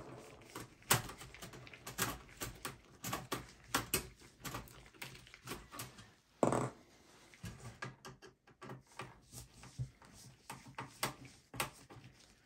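Irregular clicks, taps and rattles of a Phillips screwdriver and gloved hands working screws in the thin steel front of a desktop PC case, with one louder knock about six and a half seconds in.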